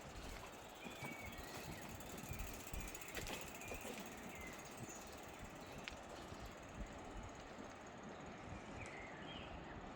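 Quiet outdoor street ambience with soft footsteps of someone walking and a few short bird chirps, a couple near the start and one near the end.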